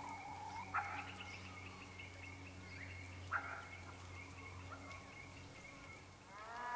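Free-ranging hens calling and clucking, with a long rapid trill from a small bird running through most of it. Near the end a hen gives a louder drawn-out call.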